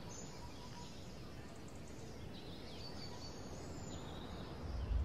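Faint outdoor ambience: a steady low background hiss with scattered small bird chirps, and a deep low rumble swelling in near the end.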